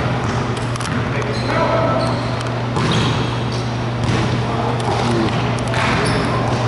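A basketball bouncing a few times on a hardwood gym floor, each bounce a sharp knock.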